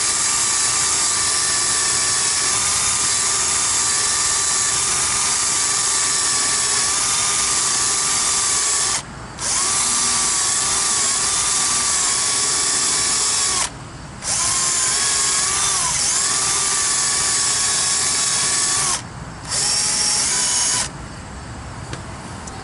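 Cordless drill running under load in long steady stretches, stopping briefly three times and ending near the end, as it cleans up copper refrigeration tubing ahead of brazing.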